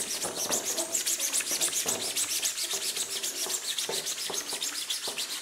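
Sandpaper rubbed by hand along the rough edge of a 3D-printed plastic wheel arch: rapid, scratchy back-and-forth strokes.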